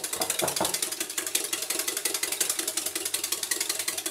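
Wire whisk beating eggs with a little milk in a glass mixing bowl: rapid, even clicking of the wires against the glass.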